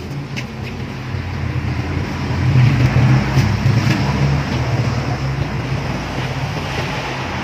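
Motor vehicle engine running, growing louder about two and a half seconds in and then easing off.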